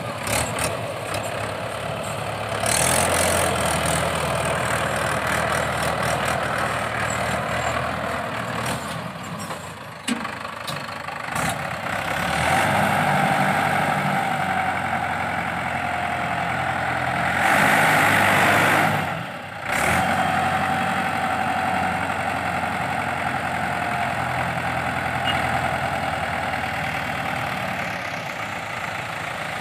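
Mahindra 585 DI tractor's four-cylinder diesel engine running under load. It grows louder past the middle and is revved hardest for a short spell. A steady whine joins in while the loaded trailer's bed is hydraulically tipped.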